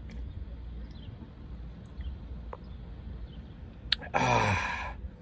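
A man sipping beer from a can, then letting out a short, falling 'aah' of satisfaction about four seconds in.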